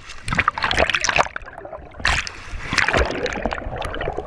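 Seawater splashing and sloshing close against a chest-mounted GoPro as people grapple in the shallows, the camera dipping under the surface near the end.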